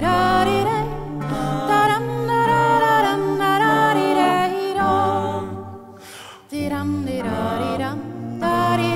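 Soundtrack music: several voices singing a cappella in harmony over low held notes. It fades into a brief lull about six seconds in, then comes back in suddenly.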